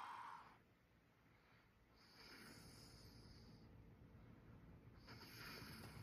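A sleeping man's faint, airy breathing with a light snore: one breath trails off in the first half second, then two more breaths come about two seconds in and about five seconds in, each lasting around a second and a half.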